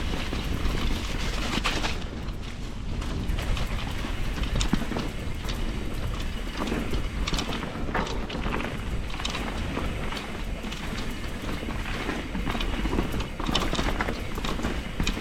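Enduro mountain bike ridden down a dirt trail: tyres on the ground and the bike rattling with irregular clicks and knocks over the bumps, over a steady low rumble.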